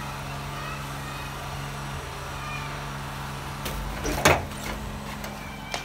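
Metal lever handle and latch of a wooden door clicking sharply as the door is opened, with a few lighter clicks around it, over a steady low hum.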